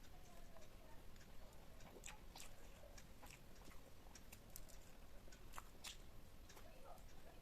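Close-miked eating: a person chewing and biting food, with faint, irregular sharp mouth clicks and smacks.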